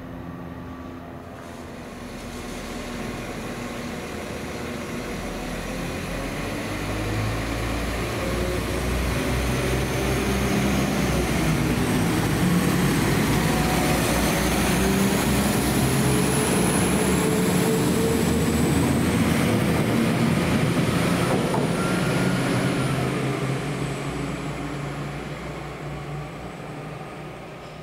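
A train going by: the sound builds over about ten seconds, is loudest in the middle, then fades, with whining tones that slowly change pitch.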